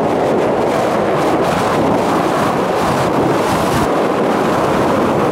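Strong wind blowing across the microphone, a loud steady rush.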